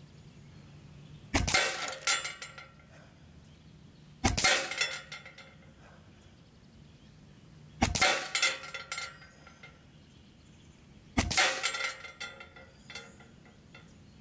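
Four shots from a Benjamin Armada semi-auto .22 PCP air rifle, about three to three and a half seconds apart, each a sharp crack followed by a brief metallic ringing clatter.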